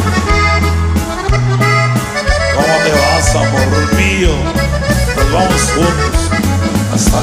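Norteño music played as an instrumental passage: accordion carrying the melody over a stepping bass line and a steady drum beat.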